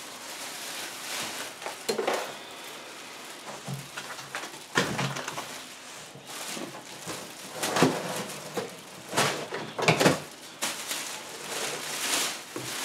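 Clear plastic packaging bag crinkling and rustling in irregular bursts as it is untied and pulled loose by hand.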